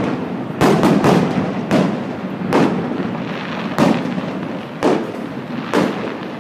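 Aerial fireworks going off in a string of sharp bangs, about seven of them at intervals of roughly a second, each trailing off into a rolling rumble.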